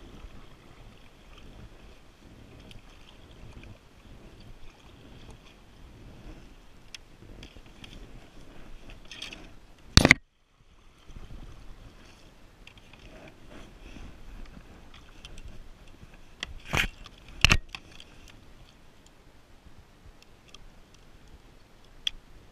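Kayak paddle strokes, the blade dipping and splashing through lake water, over a steady low rumble of water and movement. Three loud sharp knocks stand out: one about ten seconds in, after which the sound drops out for a moment, and two close together around seventeen seconds.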